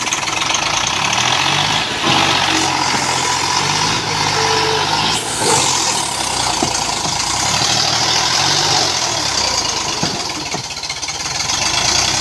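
Eicher 548 tractor's three-cylinder diesel engine labouring as it pulls a fully loaded trolley, the revs rising and falling several times.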